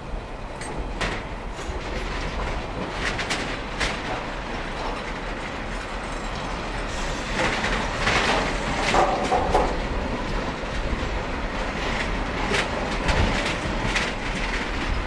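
Freight train's empty flat wagons rolling past, wheels clicking and knocking irregularly over the rail joints with clanks from the wagons, over a steady rumble that grows a little louder; a louder stretch of clanking comes about eight to ten seconds in.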